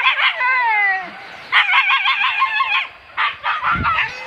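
Hunting dogs on a wild boar hunt yelping and howling in high, wavering calls: a falling howl at the start, then a quick run of yelps in the middle and a few more near the end.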